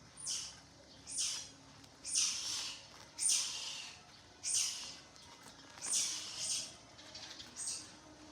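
A baby monkey squealing: about seven shrill, hissy calls roughly a second apart, each falling in pitch.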